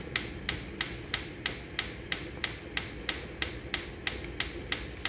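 Gas hob's electric igniter clicking steadily, about three sharp clicks a second, as it sparks to light the burner.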